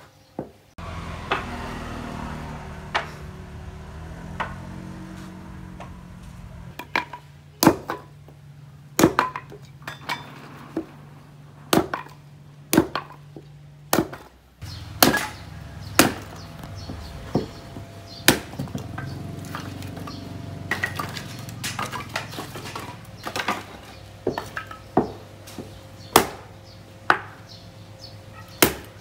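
Hatchet chopping and splitting white oak smoke wood into small pieces: sharp, cracking chops about one a second, with a few quieter knocks between them.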